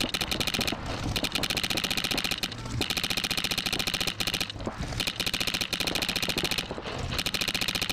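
Electronic paintball marker, an Empire Axe, firing full-auto ramping strings of shots. The shots come very fast and in five bursts, with short pauses between them.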